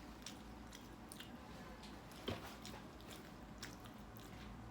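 Faint chewing of a mouthful of white cheese pizza: small mouth clicks, with one slightly louder click a little past two seconds in.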